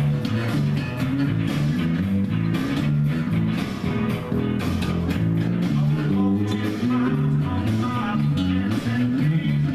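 Rock music with electric guitar and a moving bass line over a steady beat.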